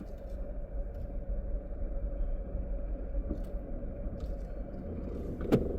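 Car engine and tyre rumble heard from inside the cabin while driving slowly, a steady low drone with a faint hum. A short thump near the end.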